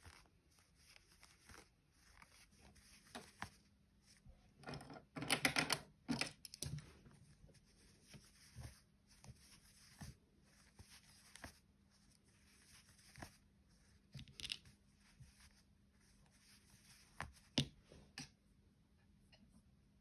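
Faint hand-crocheting sounds: soft rustling of velvety chenille yarn and light clicks of a metal crochet hook working single crochet stitches, with a louder scratchy rustle about five seconds in and a sharp click near the end.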